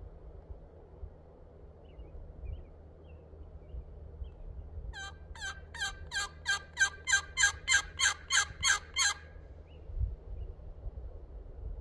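A run of about fourteen turkey yelps, evenly spaced at about three a second, starting about five seconds in and lasting some four seconds, each note sharp and sliding down in pitch. Faint small-bird chirps come before them, over low wind rumble.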